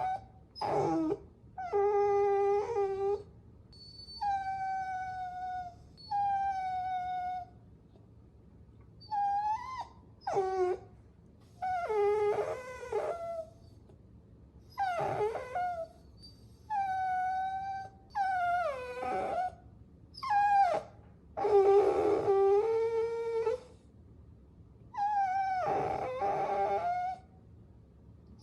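Puppies whining and whimpering: a run of separate high-pitched cries, some held and slowly falling, others short with sharp rising or falling slides, with brief pauses between.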